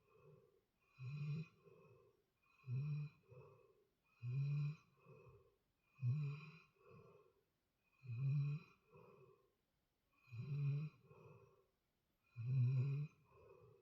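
Steady snoring in sleep: a loud rasping snore about every two seconds, each followed by a softer sound on the breath out.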